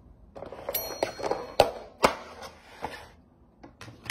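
Plastic food packaging being handled and opened: crinkling and rustling with a few sharp clicks, dying down about three seconds in.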